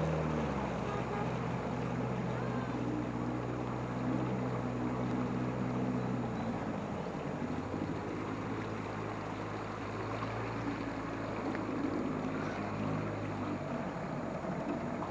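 Outboard boat motor running steadily at low speed, with water splashing and lapping against an aluminium hull. About six and a half seconds in, the lowest part of the engine note drops away.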